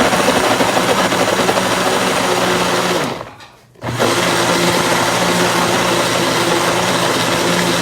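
Electric kitchen blender running, whipping egg whites, sugar and sliced mango into frosting. It runs for about three seconds, stops briefly, then starts again and runs about four seconds more.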